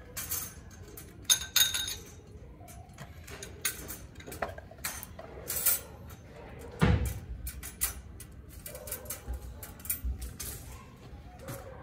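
Small hard objects clinking and clattering: a run of sharp clicks with a couple of ringing clinks a second or so in, and a heavier thump near the middle.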